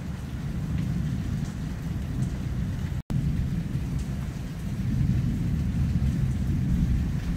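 Thunder rumbling low and continuously during a thunderstorm, swelling louder about a second after a lightning flash, over a faint hiss of rain. The sound drops out for an instant about three seconds in.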